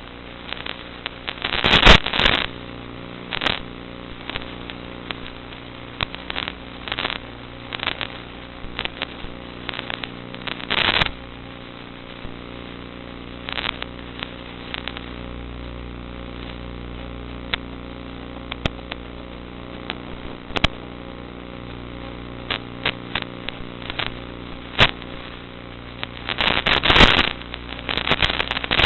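Steady hum of the Zagi flying wing's electric motor and propeller, with irregular crackling pops throughout and louder crackling clusters about two seconds in, around eleven seconds and near the end.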